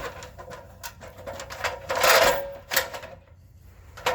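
Ladder clanking and knocking as it is climbed and shifted, a series of irregular sharp knocks with a louder scraping rush about two seconds in.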